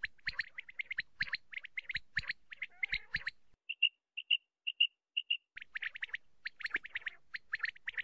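Common quail calling: rapid runs of short, sharp chirping notes. About three and a half seconds in these give way to clean high notes in pairs, repeated about every half second, before the rapid notes return.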